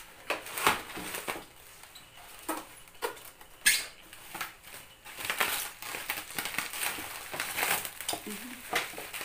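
Bubble wrap and plastic packaging crinkling and rustling in irregular bursts as an electric barbecue grill is pulled free of its wrapping, with one sharper crackle a few seconds in.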